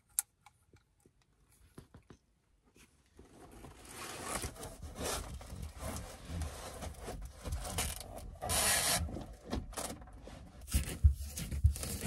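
Quiet at first apart from a single click, then irregular rustling and scraping as things are handled and moved about. There is a louder rustle a little past the middle and a few soft thumps near the end.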